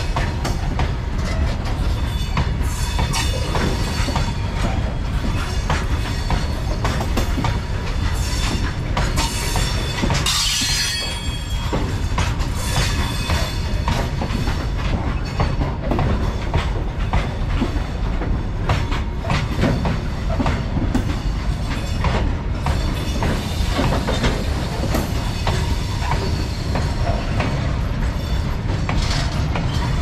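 Freight train's covered wagons rolling past close by: a steady heavy rumble of steel wheels on rail with repeated clatter over rail joints. A brief high screech comes about ten seconds in.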